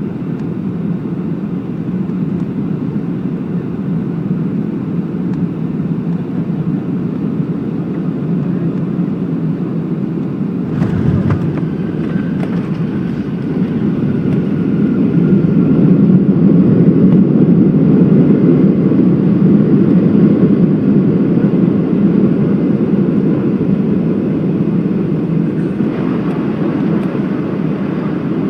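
Cabin noise of a Boeing 757-200 on landing: a steady low rumble, a sudden jolt about eleven seconds in as the wheels touch down, then the noise grows louder for several seconds as the jet brakes on the runway, and eases off near the end.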